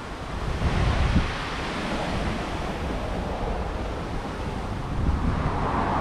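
John Deere 8700i combine harvester's 19-litre six-cylinder diesel running, a steady rushing noise with wind buffeting the microphone; it swells about a second in and again near the end.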